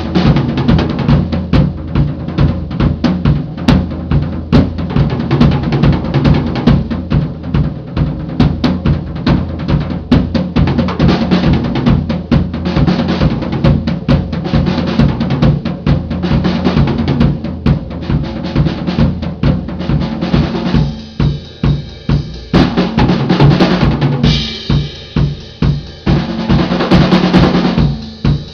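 Drum kit played solo: fast snare and tom patterns over the bass drum, with rolls and rimshots. From about 21 seconds in the playing turns sparser, with separate hits and short gaps.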